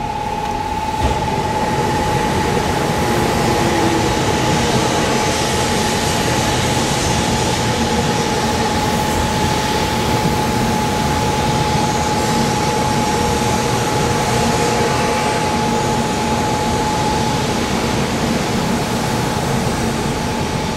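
Kyushu Shinkansen 800 series train running slowly past as it pulls in to stop at the platform, a steady rumble and rush from its wheels and running gear. A steady high tone runs through it almost to the end.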